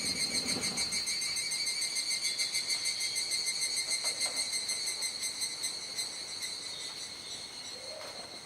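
Chorus of cicadas at dusk: a steady, finely pulsing high buzz that eases off a little in the last few seconds.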